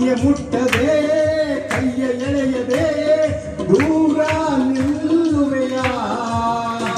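A woman and a man singing a Kannada film duet into microphones over a recorded karaoke backing track with a steady beat, heard through a PA speaker.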